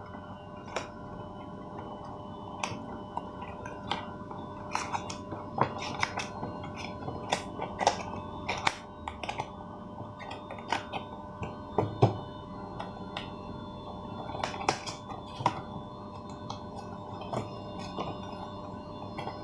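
Thin cardboard snack boxes being folded quickly by hand: irregular crisp creases, snaps and taps of the card, over a faint steady hum.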